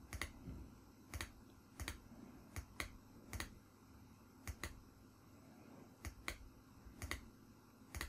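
Computer mouse button clicking, faint, sharp clicks about once a second, several in quick pairs.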